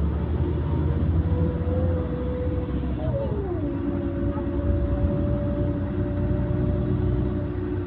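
Second-generation Güleryüz Cobra GD-272 city bus under way: a steady low engine rumble with a whine that climbs slowly, glides down in pitch about three seconds in, then holds steady.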